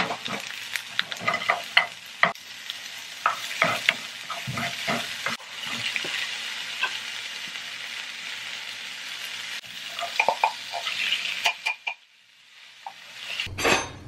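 Corn kernels and chopped scallions sizzling in a nonstick frying pan while a wooden spatula stirs them, with frequent clicks and scrapes of the spatula against the pan. The sizzling breaks off about twelve seconds in.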